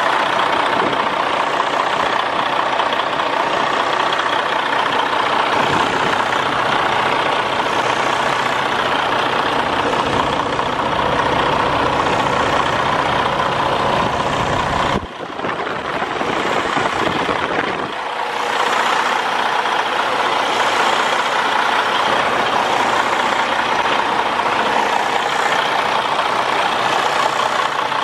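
Detroit DD15 inline-six diesel in a Freightliner Cascadia semi truck idling steadily, heard with the hood open. Its deep low rumble drops away abruptly about halfway through.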